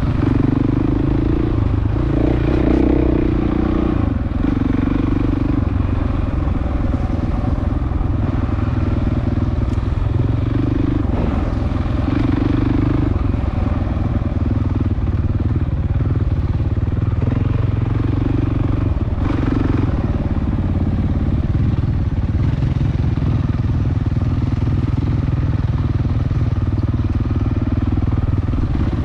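Dirt bike engine running at low trail speed, the throttle opening and closing every few seconds.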